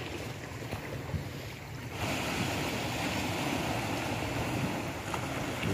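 Small waves washing onto a sandy beach, with wind on the microphone. The sound changes abruptly about two seconds in.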